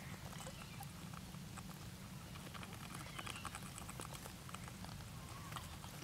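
Light, rapid scratching and tapping as parakeets shuffle about on a nest of dry grass, with a few faint short chirps, over a steady low hum.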